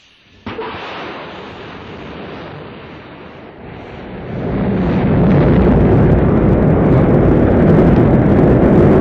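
Rocket engines firing at launch: a deep rushing noise starts suddenly about half a second in, then swells much louder around four seconds in and holds steady.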